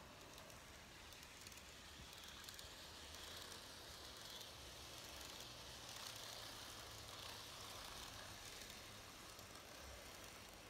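N-gauge model trains running: a faint whirring hiss of wheels on track and small motors, with light clicks, swelling in the middle as a TOMIX 251 series passes close by.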